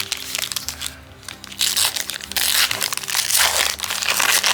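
Plastic wrapper on a pack of cards crinkling and crackling as it is pulled open, much louder from about one and a half seconds in, over soft background music.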